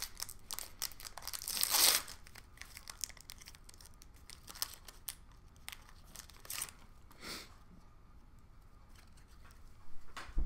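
Foil wrapper of a hockey card pack crinkling and tearing, loudest about two seconds in, then light scattered crackles and rustles.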